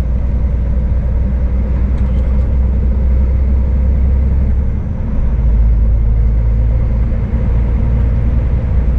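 Scania S500 truck's engine and road noise heard from inside the cab: a steady low drone while cruising on the highway with a loaded trailer.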